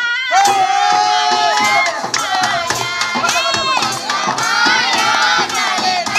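A group of men's and women's voices singing a Kannada folk song chorus together, loud enough to sound close to shouting, with held notes, over handclaps and tamate frame-drum strokes.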